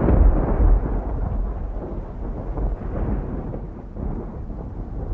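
A low, noisy rumble slowly fading away after the beat stops, closing out the song.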